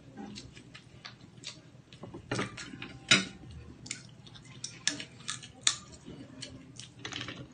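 Spoon and fork clinking against plates and mussel shells while eating. A scatter of short sharp clicks, the loudest about three seconds in and again a little before six seconds.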